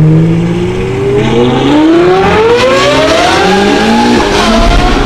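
Straight-piped Ferrari 812 Superfast V12 exhaust (Novitec N-Largo) accelerating hard: a loud, steady engine note that climbs in pitch for a few seconds, then dips briefly and levels off near the end.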